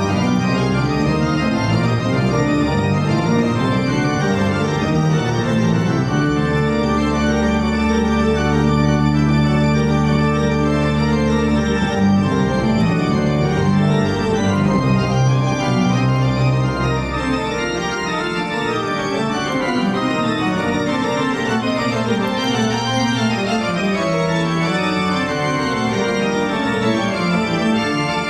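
Slow organ music of sustained chords, with a long low chord held from about six to twelve seconds in.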